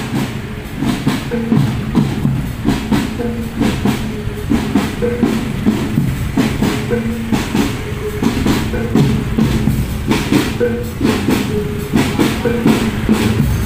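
Bregada procession music: drums beating a steady marching rhythm under a simple melody of short, repeated pitched notes.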